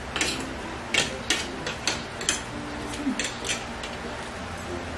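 Metal forks and spoons tapping and scraping against ceramic plates while eating, in sharp, irregular clicks a few tenths of a second to a second apart.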